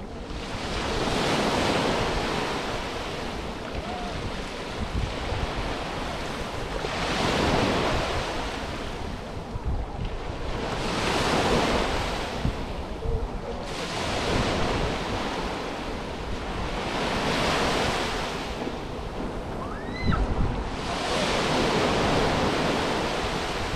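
Small sea waves breaking and washing up a sandy beach, surging and falling back five times at intervals of about four to six seconds. Wind rumbles on the microphone underneath.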